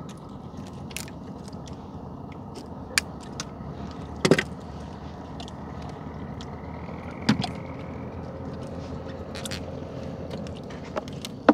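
A small boat engine running steadily, with a few sharp knocks and clicks on top.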